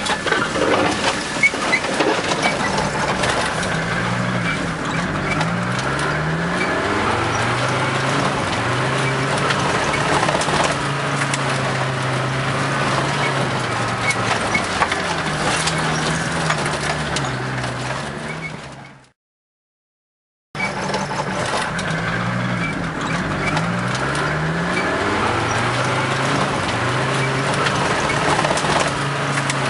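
A vehicle engine heard from inside the cab on rough sand and gravel, its pitch rising and falling again and again as it revs and changes gear, with knocks and rattles over the tyre noise. About two-thirds of the way in the sound cuts out completely for a second and a half, then comes back.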